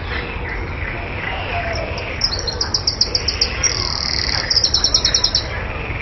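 Eurasian wren singing: a high-pitched, fast run of notes starting about two seconds in, breaking into a continuous trill midway, then more rapid repeated notes before it stops.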